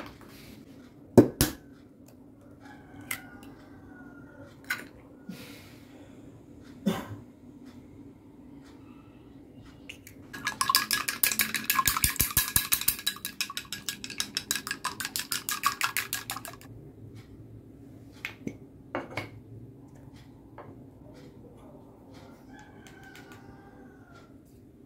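Eggs being beaten in a glass mug with chopsticks: a fast, dense clinking against the glass lasting about six seconds, around the middle. Before it come a few single sharp taps and knocks as eggs are cracked.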